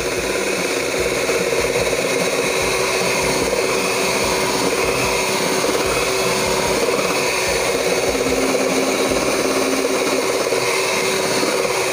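Electric hand mixer running steadily at a constant speed, its beaters whipping cake batter in a metal bowl.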